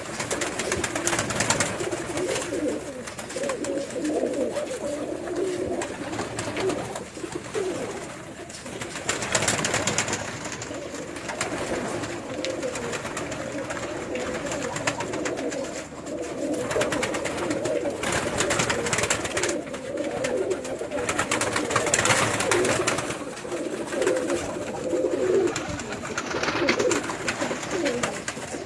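Several doves cooing continuously in low, wavering calls, with several brief noisy bursts mixed in.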